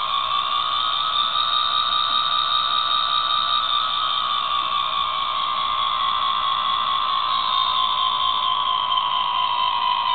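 ESU LokSound decoder in a Liliput HO-scale SBB FLIRT model playing the electric train's standing sounds through its small built-in speaker: a steady electric whine made of several tones, the higher ones slowly drifting in pitch, with a thin, tinny quality.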